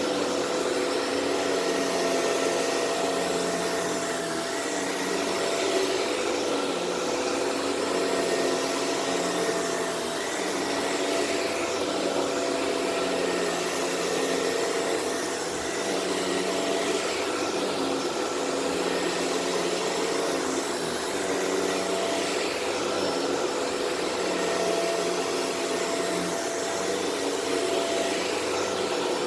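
Shark Rotator Powered Lift-Away vacuum running on carpet, picking up deodorizing powder: a steady motor whine with a hum, the level dipping a little now and then.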